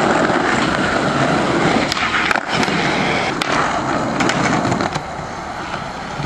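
Skateboard wheels rolling over a paved driveway: a steady rolling rumble with a few sharp clicks.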